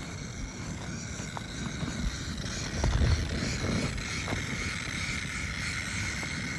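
Handheld butane gas torch hissing steadily as its flame is held to kindling, with a few small crackles from the catching wood.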